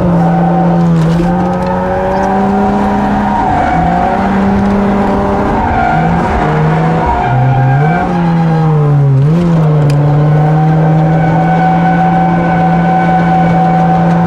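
Drift car engine held at high revs, its note dipping and climbing back several times, with tyres squealing under the slide.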